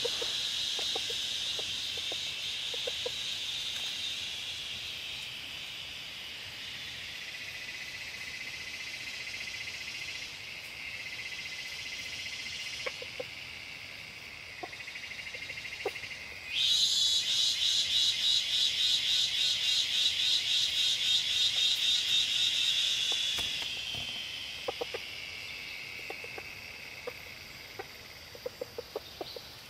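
Forest insect chorus: a steady high buzzing throughout, joined about halfway through by a louder, rapidly pulsing insect buzz that lasts several seconds and then fades. Faint scattered ticks sound underneath.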